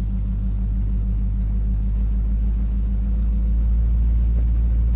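Dodge car's engine and exhaust rumbling steadily as heard from inside the cabin while driving, growing a little louder toward the end.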